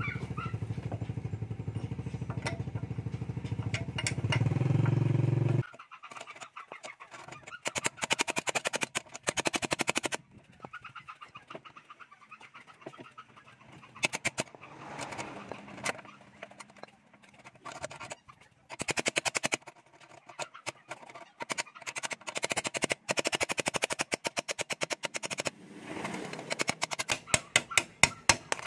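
A motor vehicle engine runs steadily, grows louder and cuts off suddenly about six seconds in. Then come repeated bursts of quick metallic taps as the worn front axle bearing of a Bajaj RE three-wheeler is knocked out of its wheel hub from the back side.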